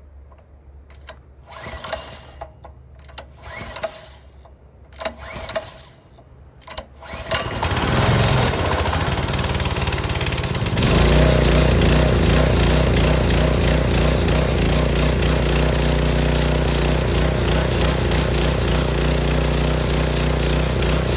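Small gasoline engine on a hot water pressure washer being started on choke: several short cranking bursts, catching about seven seconds in, then running continuously and settling into a louder, steady run from about eleven seconds in.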